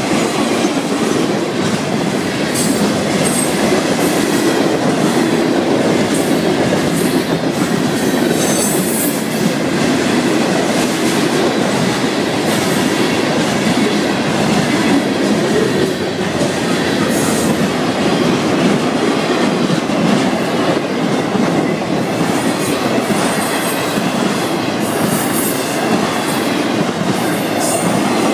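Freight train cars rolling steadily past at close range: a continuous rumble of steel wheels on rail, with a brief high squeal from the wheels now and then.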